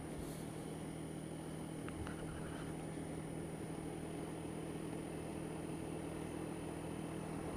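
Honda Dio scooter engine running at an even cruising speed, a steady hum under road noise.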